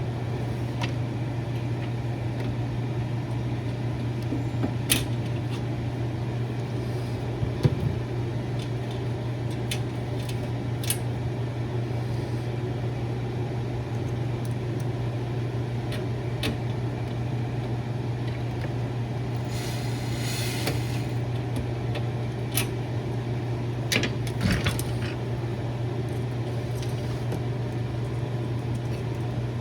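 A steady low mechanical hum, like a fan or motor running, with scattered light clicks and taps from handling small plastic mounting parts, and a brief rustle about twenty seconds in.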